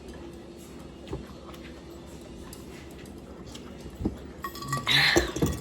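Table and eating sounds during a taco meal: a few light clicks of dishes and cutlery, then a louder mouth sound of biting and chewing near the end.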